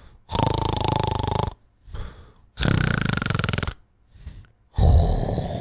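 A man imitating a pug snoring at night: loud, rasping snores about a second long, with short quieter breaths between them, and another one starting near the end.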